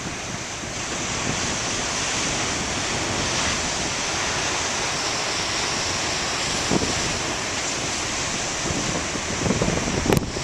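Large ocean surf breaking and rushing onto a beach as a steady roar, with wind buffeting the microphone.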